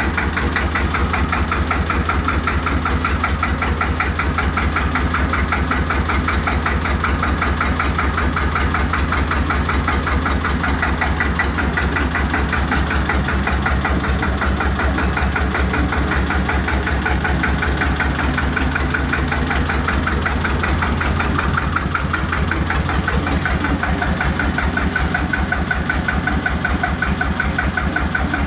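A small tractor's engine idling steadily with an even, rapid pulsing beat.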